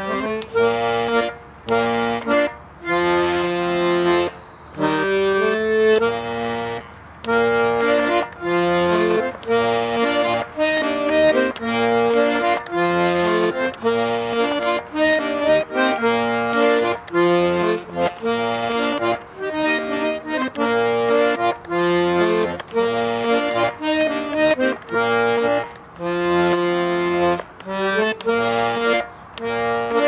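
Russian garmon, a button accordion, playing a tune in full chords, in short held phrases broken by brief gaps.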